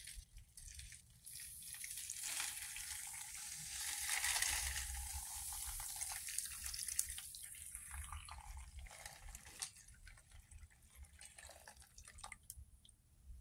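Hot water poured from a glass measuring cup into a foil-lined dish of salt and baking soda, a splashing pour that is loudest about four seconds in and fades out after about nine seconds.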